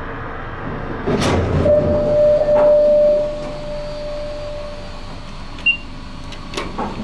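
Otis Series 1 elevator at work: doors sliding with a rumble and clatter about a second in, while a single chime tone rings out and fades over about three seconds. Near the end comes a short high beep, then a click.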